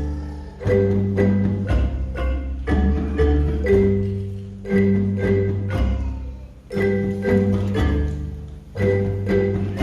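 A school mallet-percussion ensemble playing a tune on xylophones and similar barred instruments, with low bass notes under higher ones, in short phrases of several struck notes that begin again about every two seconds.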